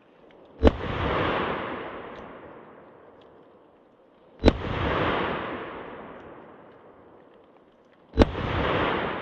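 Three single shots from a .38 Special revolver firing wadcutter rounds, spaced a few seconds apart. Each sharp crack is followed by a long rolling echo that fades over a couple of seconds.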